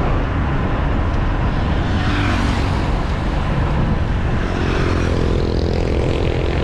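Wind rushing over the microphone of a handlebar-mounted action camera on a moving road bike, with motor traffic going by on the highway: one vehicle swells past about a third of the way in, and a pitched engine hum rises in the second half.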